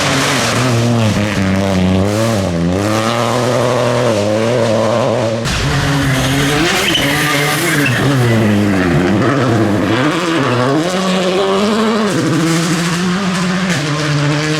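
Rally cars at full attack on gravel: the engines rev up and down again and again through gear changes and lifts, with gravel and tyre noise over the top. The sound breaks off suddenly about five and a half seconds in, and the revving carries on after the break.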